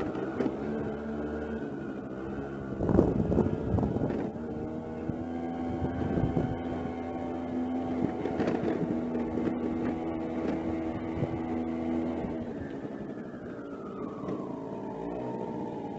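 Suzuki Address scooter engine running on a test ride, with its variator set up on lightened 9-gram rollers. The engine note holds steady, with a few rough bursts about three seconds in, then falls steadily over the last few seconds as the scooter slows.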